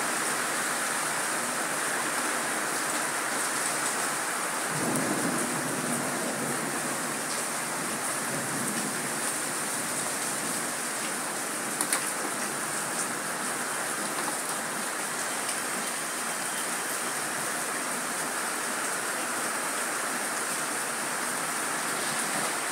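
Steady rain falling on a wet street and pavement, an even hiss. There is a short low rumble about five seconds in and a single sharp tap a little before halfway.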